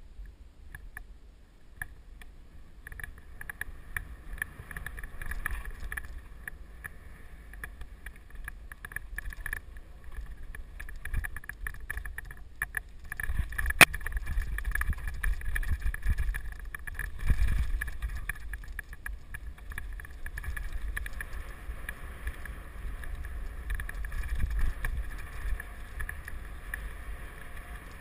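Mountain bike riding fast down a dirt forest trail: wind rumbling on the helmet microphone over tyre noise on dirt and loose leaves, with scattered rattles and clicks from the bike going over bumps. It gets louder about halfway through as the speed picks up, with one sharp knock at that point.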